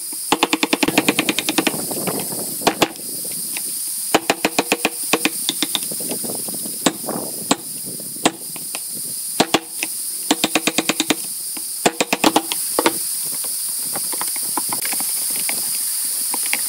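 Wooden mallet tapping a wood chisel into pine in several quick runs of light blows, each run lasting about a second. Between the runs the chisel scrapes as it pares out chips.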